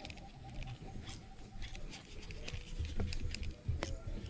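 Handling noise from a spinning rod and reel being worked by hand: scattered soft clicks and low bumps, with a couple of louder thumps about three and four seconds in.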